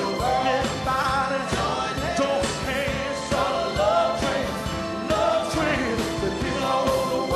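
Live soul/R&B performance: a male lead singer on microphone over a band of drums and electric bass keeping a steady beat.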